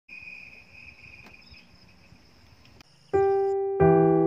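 Insects trilling steadily at a high pitch, then piano music comes in about three seconds in, much louder, with held notes.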